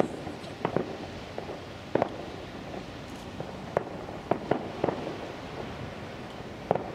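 Daytime fireworks going off: sharp bangs at irregular intervals, several in quick succession about four to five seconds in.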